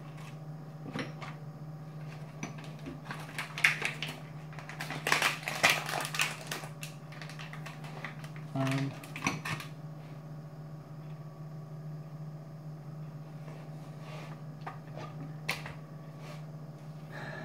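Hands handling food and its wrapping at a kitchen counter: a run of quick clicks and crinkles, busiest about four to seven seconds in, with a few more later, over a steady low hum.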